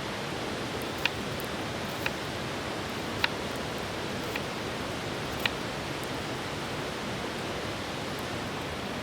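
Steady rushing of a flowing river, with five sharp clicks spaced about a second apart in the first half.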